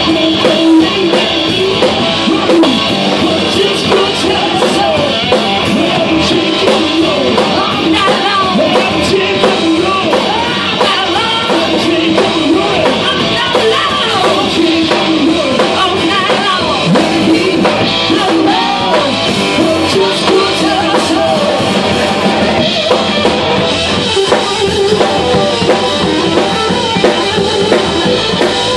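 Live rock band playing an uptempo rock-and-roll number: electric guitar, electric bass and drum kit, with a woman singing.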